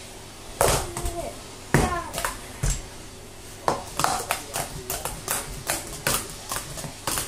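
Plastic sport-stacking cups clacking and tapping together as they are stacked and unstacked on a stacking mat, a quick string of irregular sharp clicks.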